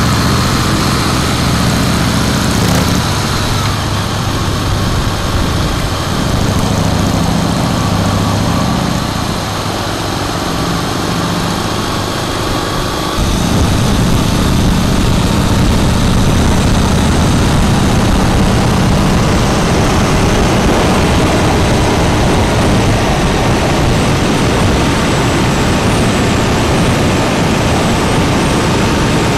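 Harley-Davidson Breakout V-twin running at highway cruising speed through a Jekill & Hyde exhaust, with wind and road noise. About 13 seconds in, the sound jumps suddenly louder and fuller.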